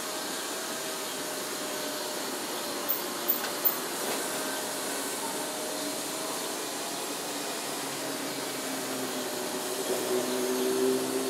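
Steady city ambience: a continuous wash of distant traffic noise with faint wavering engine tones. Three short sharp clicks about three seconds in, and a vehicle engine hum grows louder near the end.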